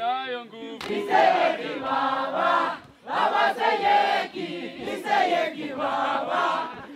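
A group of porters singing a welcome chant together, with a brief break about three seconds in before the singing picks up again.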